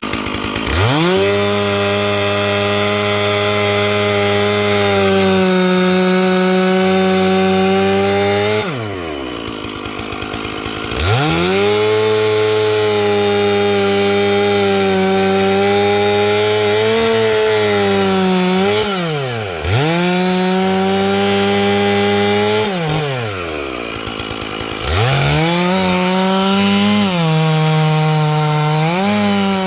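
Stihl MS461 chainsaw with a 32-inch bar cutting madrone at full throttle, its engine pitch sagging slightly under load through each cut. It drops off sharply toward idle about 9 seconds in, briefly near 19 seconds, and again about 23 seconds in, then revs back up for the next cut.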